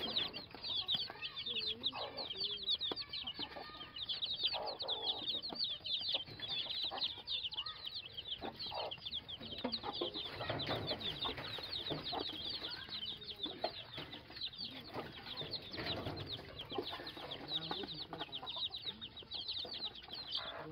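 A brood of chicks peeping nonstop in a dense stream of short, high notes, with a hen clucking low now and then among them.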